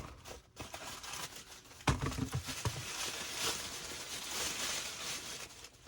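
Packaging being opened to unbox a shift knob: a few knocks, then crinkling and rustling of the wrapping for about three seconds.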